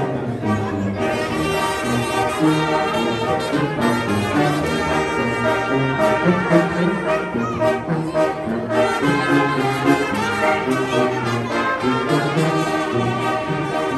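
A brass band playing a lively tune, with trombones and trumpets prominent.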